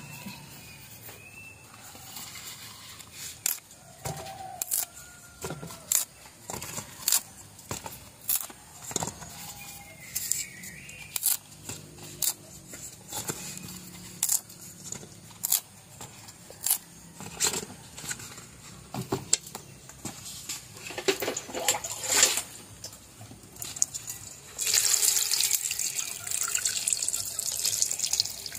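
Whole green cooking bananas set one by one into a metal pot, a string of irregular sharp knocks and clunks. About 25 seconds in, water is poured from a plastic container over the bananas in the pot, a steady splashing pour.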